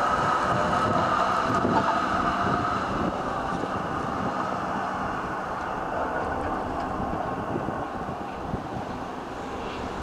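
Melbourne Z3-class electric tram pulling away from a stop and running off along the track, its motor and wheel noise with a high whine fading gradually as it draws away.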